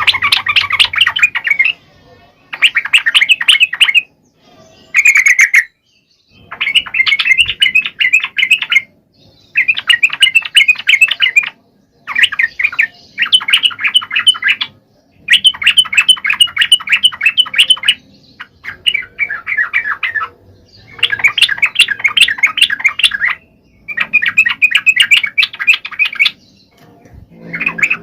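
Yellow-vented bulbul (trucukan) singing vigorously: repeated bursts of quick, bubbling chattering notes, each phrase lasting one to three seconds with brief pauses between them.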